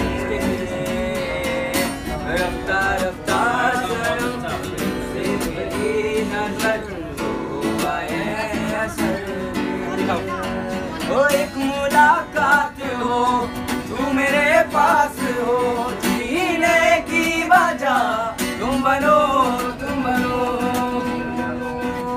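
A man singing a Hindi song to his own strummed acoustic guitar, the voice rising into louder held notes in the second half.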